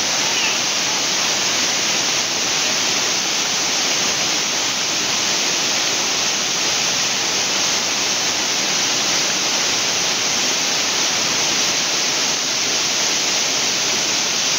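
Waterfall in spate, swollen by days of continuous heavy rain: a steady, loud rush of falling water.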